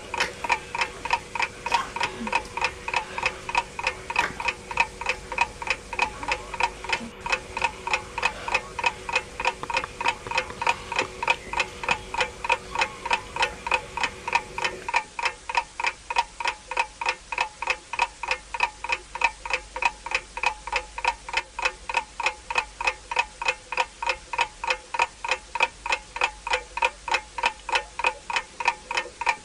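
Clock ticking sound effect, a fast, even tick-tock at about four ticks a second, running as a countdown timer.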